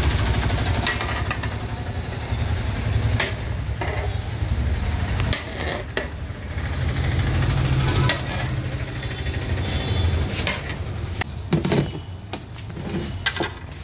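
Metal cooking utensils clattering and scraping in scattered knocks over a steady low rumble.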